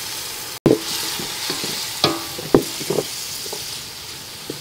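Food sizzling in oil in an aluminium pot while a wooden spoon stirs it, knocking against the pot several times, each knock with a short metallic ring.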